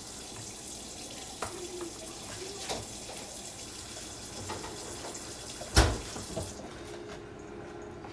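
Kitchen tap running steadily, with a few light knocks and one sharp knock about six seconds in, shortly after which the water stops.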